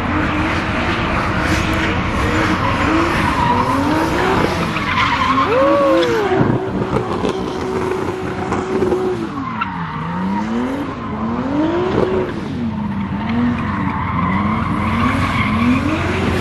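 Car engine revving up and down over and over, held high for a couple of seconds about halfway through, with tires screeching as a car drifts.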